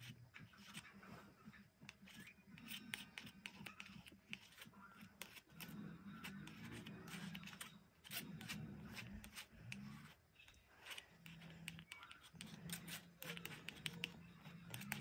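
Faint, scratchy scraping of a plastic palette knife spreading acrylic paint over canvas-textured paper, in many short strokes.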